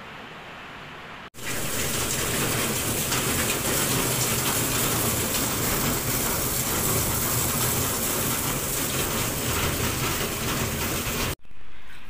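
Rain falling, lighter at first; about a second in it cuts to heavy rain pouring down, a loud steady downpour that stops abruptly near the end.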